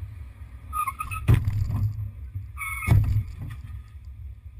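Steady low rumble of a car driving. Twice, about a second and a half apart, a short high-pitched tone sounds and ends in a sharp, loud knock.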